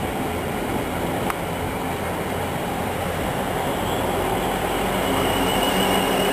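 A pair of Class 444 Desiro third-rail electric multiple units moving slowly past under caution. Their motors give a steady hum with a faint high electric whine that grows louder over the last few seconds. A single sharp click comes about a second in, and wind buffets the microphone.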